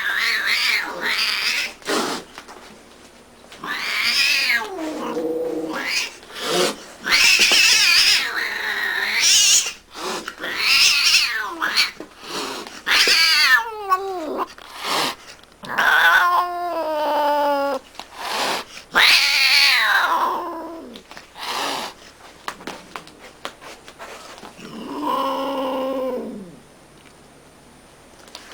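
Domestic cats meowing and yowling in a string of loud calls, several of them drawn out and falling in pitch, with short sharp knocks between.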